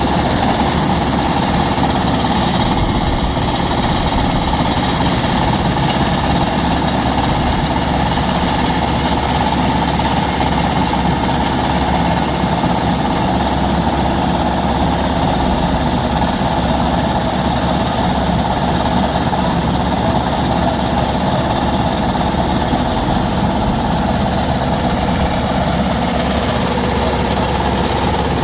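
Vögele Super 800-2 asphalt paver running steadily, a constant dense machine noise from its diesel engine and paving gear.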